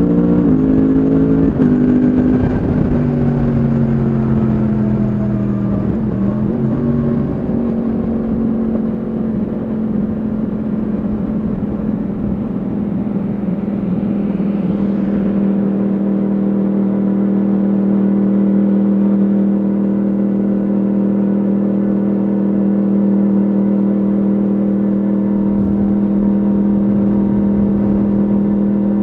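Yamaha MT-10 SP's crossplane inline-four running through an Akrapovic exhaust, heard onboard. Its note shifts and falls in pitch over the first several seconds, then holds a steady, unchanging pitch for the rest.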